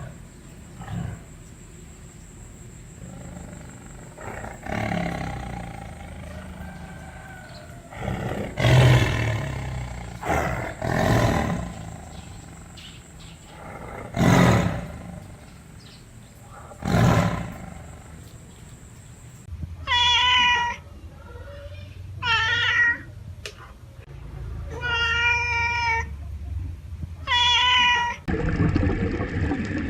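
Animal calls: a run of loud, rough, roar-like calls, then four high, drawn-out calls of about a second each, with a steady rushing noise starting near the end.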